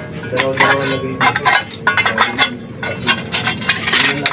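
A hammer knocking at the concrete and hollow-block seal of a tomb niche: a run of sharp, irregularly spaced blows as the masonry is chipped away.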